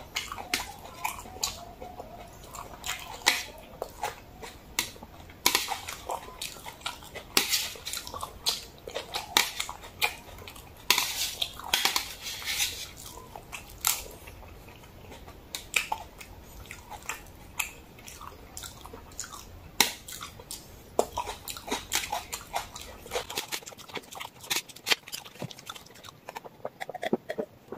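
Close-miked eating sounds of jajangmyeon (Korean black bean noodles): wet chewing and mouth smacks, with many sharp clicks.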